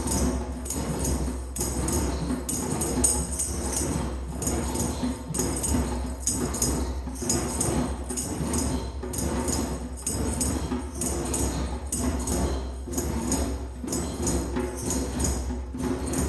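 A group playing hand drums together in a bouncy skipping rhythm, with tambourine jingling over the drum beat.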